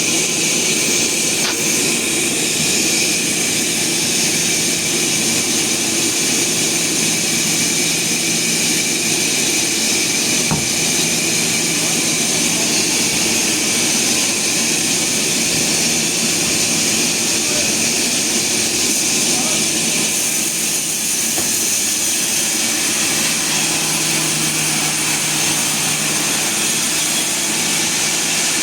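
Sawmill machinery running with a loud, steady mechanical noise and a held hum.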